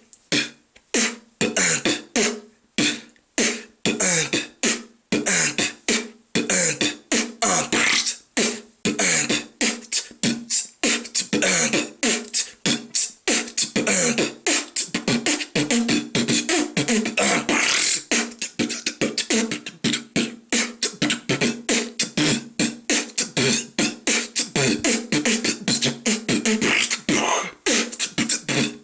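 Solo vocal beatboxing: a fast run of mouth-made kicks, snares and clicks with gliding hummed tones woven in. The pattern is sparser at first and becomes a dense, unbroken stream from about ten seconds in.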